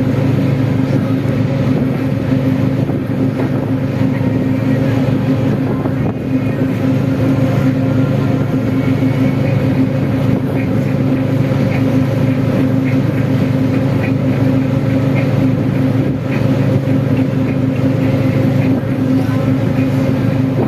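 Steady drone of a river tour boat's engine, running evenly at a constant low pitch.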